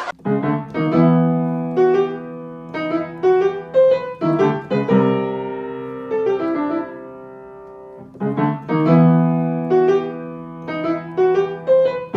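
Piano music: a short melodic phrase of struck notes ends on a held chord that fades out, then starts again about eight seconds in.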